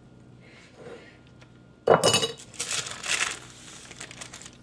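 Metal kitchenware clattering as a metal mesh strainer is set out on a wooden board: a sharp knock about two seconds in, then a second or so of rattling and clinking that dies away.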